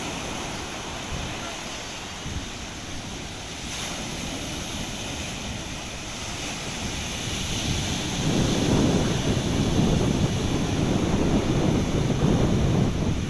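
Sea surf washing in steadily, with wind buffeting the microphone; the sound gets louder and heavier about eight seconds in.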